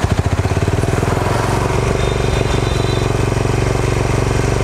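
Honda H'ness CB350's single-cylinder engine revved up from idle: the slow, separate thumps quicken within the first second and settle into a steady note at held raised revs.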